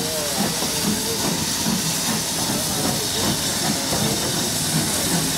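Steady hiss of escaping steam from J72-class 0-6-0 tank locomotive No. 69023 as it moves off with a coach.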